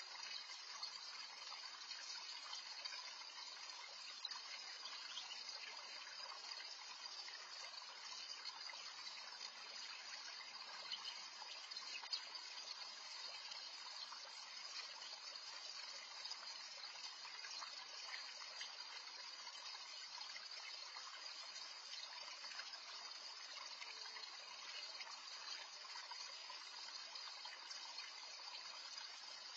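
Small garden pond waterfall splashing steadily over rocks into a shallow pool.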